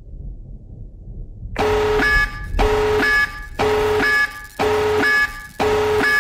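Electronic emergency alert tone beeping in a steady pulse, about one beep a second, five beeps in all, starting about a second and a half in over a low rumble.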